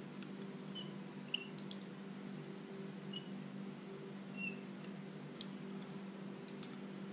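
Faint, short squeaks and a few light clicks from a fly tying bobbin as dental floss is wound tightly around the end of a fishing leader, binding it off. A steady low hum runs underneath.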